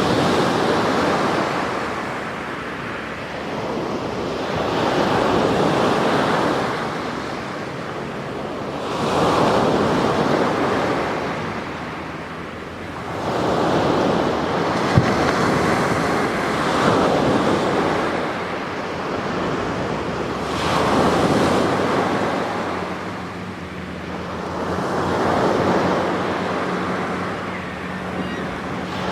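Sea waves breaking and washing on the shore, swelling and fading about every five seconds, with one sharp click about halfway through.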